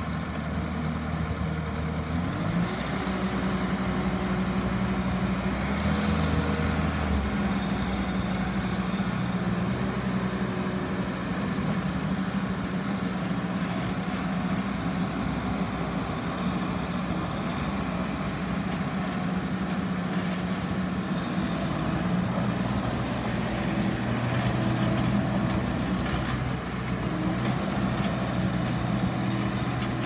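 Bobcat S530 skid steer loader's diesel engine running as the machine drives. It revs up a couple of seconds in and holds a steady working speed, and its note shifts again later on as the machine manoeuvres.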